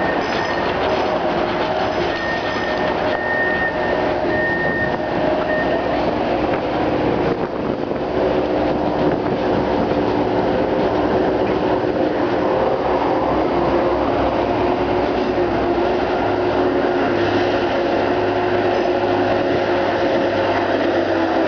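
Steady din of heavy vehicles and machinery in a shipyard: a dense rumble with several held whining tones, and a low engine drone that grows stronger in the second half.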